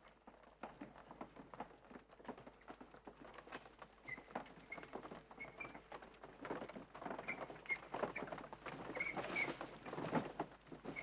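Horse-drawn covered wooden wagon rolling along a forest track, with a busy clatter of wheels, hooves and footsteps and short creaking squeaks from the wheels and frame. The sound grows louder as the wagon draws near.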